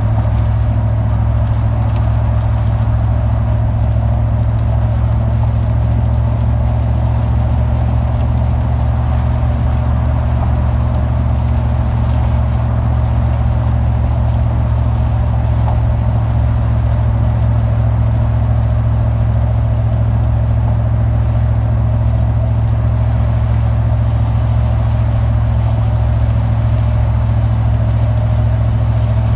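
A car driving along, with a steady, unchanging low drone of engine and road noise.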